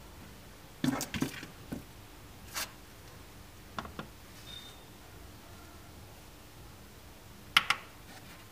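Knocks and clicks of things being handled on a stainless steel kitchen scale: a metal weight lifted off and a plastic bowl set down on the platform. A brief faint beep comes midway, and a sharp click near the end is the loudest sound.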